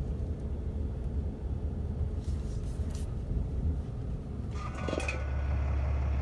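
Pickup truck engine running with a steady low rumble, heard from inside the cab. A brief rustle comes about five seconds in.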